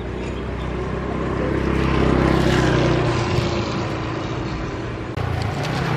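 An engine passes by, its drone growing louder to a peak about two seconds in and then fading, with another engine approaching near the end.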